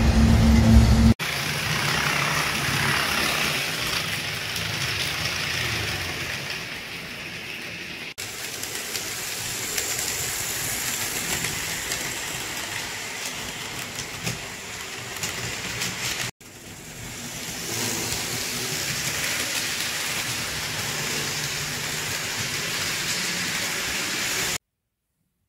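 HO scale model freight trains rolling past at speed: a steady hiss and rattle of small metal wheels on the track, with faint clicks. The sound breaks off suddenly twice and stops abruptly near the end. A louder, deeper rumble fills the first second.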